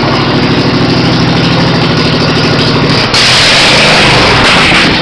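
Straight-piped lawn mower engine, muffler removed, running very loud with a steady, even exhaust note; about three seconds in the sound abruptly turns louder and harsher.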